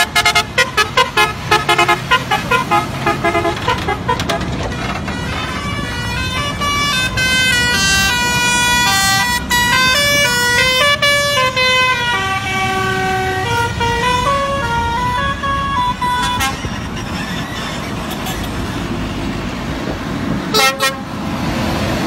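Telolet musical air horn on a multi-axle heavy-haul lorry: a quick run of short toots, then a tune of stepped notes for about ten seconds, and two short toots near the end. The truck's engine rumbles underneath.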